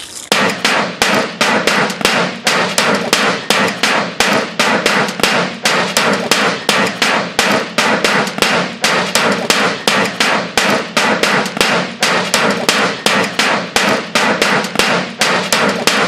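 A baseball bat rapidly striking the metal case of a microwave oven: a fast, even run of loud whacks, about three or four a second, each ringing briefly.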